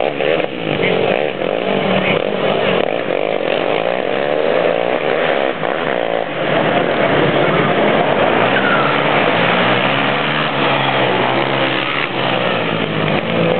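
ATV engine running hard, its pitch rising and falling repeatedly as it revs through the gears and backs off.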